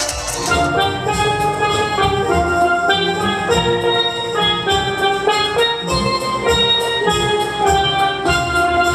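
A steel band playing a quick, bright melody of struck steelpan notes over a drum beat.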